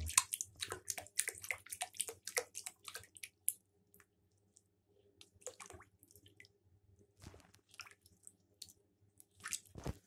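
Quick clicks and small splashes of a Cape monitor lizard walking through shallow bathwater, its claws scraping the tub floor. They come thick and fast for the first three seconds or so, then thin out, with one louder splash near the end.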